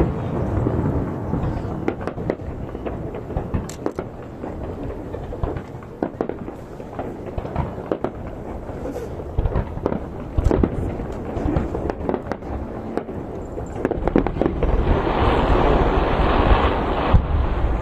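Fireworks bursting in a rapid series of bangs and crackles over a low rumble, with a denser crackling hiss swelling about fifteen seconds in.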